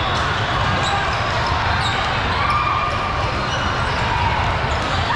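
Steady din of a big sports hall during basketball games: basketballs bouncing on the courts amid a background of spectators' voices.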